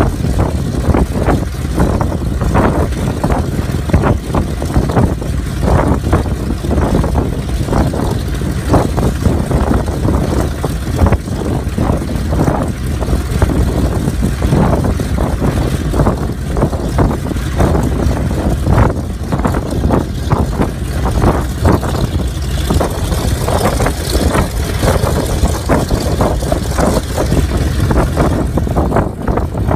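A6M3 Model 22 Zero fighter's radial engine idling on the ground, running with quick, uneven exhaust pops over a low rumble.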